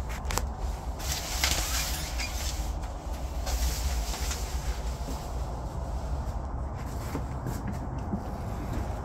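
Plastic shower curtain being pushed aside, rustling in two swells a second or so apart, over a steady low rumble, with a few sharp clicks.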